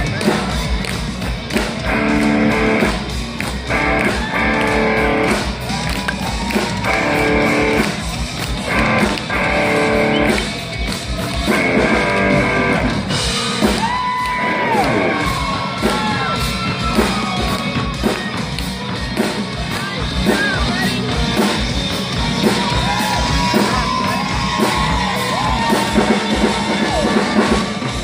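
Live rock playing, loud and amplified: a drum kit pounding under a distorted electric guitar playing repeated chords, then bending, gliding notes later on.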